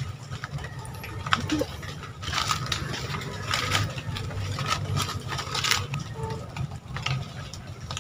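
Dry leaf litter and twigs rustling and crackling, with many small clicks and a few louder bursts of rustle.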